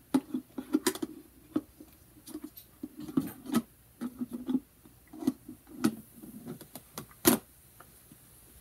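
Hard plastic animatronic head-base parts knocking and clicking against each other as they are fitted together by hand: irregular taps and rattles, with one louder click a little past seven seconds in.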